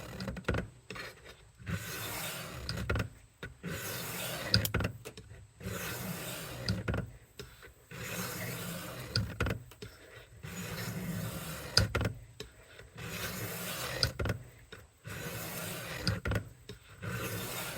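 Kitchen knife blade being drawn across the wet coarse stone of a Work Sharp guided sharpening system: a rasping scrape about a second long, repeated roughly every two seconds, with small clicks between strokes as the blade is reset.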